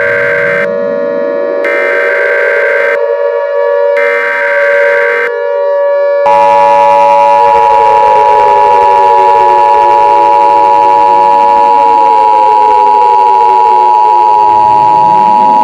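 Emergency Alert System alert signals: three short, buzzy SAME header data bursts, then about six seconds in the steady two-tone EAS attention signal comes on and holds. A siren wails beneath throughout, its pitch winding up and down.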